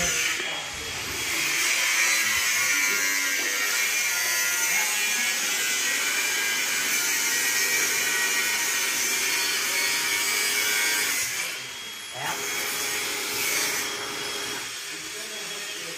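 Small power drill running steadily as a little bit drills a pilot hole into a rivet on a truck cab, for about ten seconds, then stopping and giving a shorter second run.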